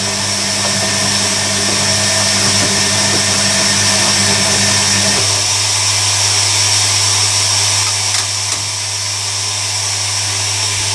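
Hoover Electronic A3172 front-loading washing machine filling with water for its softener rinse: a steady inlet-valve hum under the hiss of water rushing in. Part of the hum drops out about five seconds in while the water keeps running.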